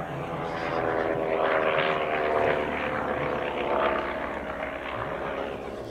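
Clerget 9B rotary engine of a reproduction Sopwith Triplane running in flight, growing louder to a peak in the middle as the aircraft passes, its pitch falling slightly, then fading.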